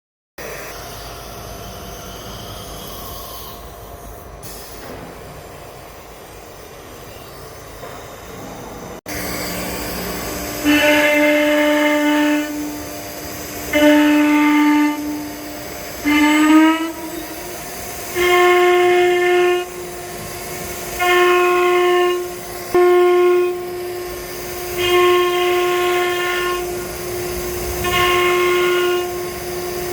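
CNC router engraving: a steady machine hum, then from about 9 seconds in a pitched whine that starts and stops in stretches of about a second, stepping up a little in pitch partway through, as the axes move the engraving head.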